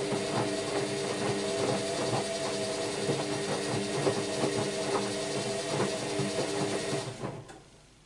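AEG Lavamat Protex L72475FL front-loading washing machine tumbling a wet load mid-wash: the drum motor hums with a steady whine while the laundry sloshes and knocks. The drum stops about seven seconds in and the sound falls away.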